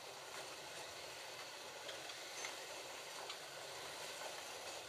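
Several Slot.it Ford GT40 slot cars lapping a plastic track: a steady whirring hiss of their small electric motors and tyres, with a few faint ticks.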